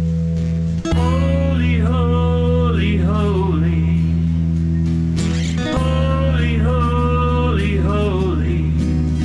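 Worship song with a singer and a sustained instrumental backing. The singer sings two slow phrases of the melody, one starting about a second in and the next around the middle.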